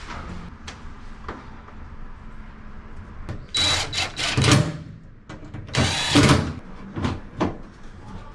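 Power drill running in two short bursts about a second apart, with a steady high whine, and scattered clicks and knocks around them.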